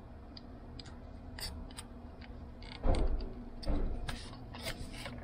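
Scattered small clicks and taps of the plastic cassette door and transport plate of a Sony cassette deck being handled and worked loose by hand, with two heavier bumps about three and nearly four seconds in.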